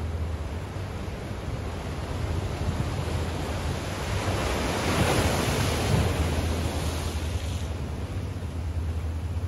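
Waves washing against shoreline rocks, with one larger wave swelling to a rush about halfway through and then draining away, over a steady low rumble.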